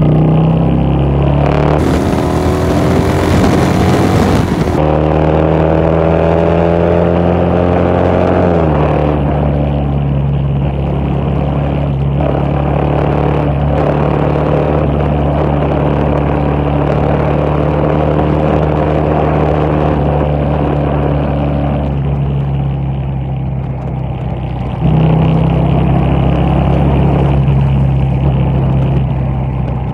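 Yamaha Bolt's air-cooled V-twin running through a ForceWinder full-system exhaust while riding at highway speed. The revs climb for the first eight seconds or so, drop once as a gear is changed, then hold steady, and the engine grows louder again about 25 seconds in. A rush of wind noise on the microphone comes about two seconds in.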